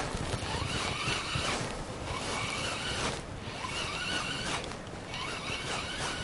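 Spinning reel being cranked to retrieve a lure: a whirring in four spells broken by brief pauses about every one and a half seconds.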